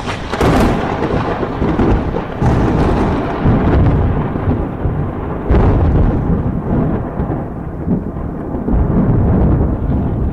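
Storm sound effects: thunder rumbling deep and continuously, with sharp cracks near the start, around two and a half seconds in and about five and a half seconds in.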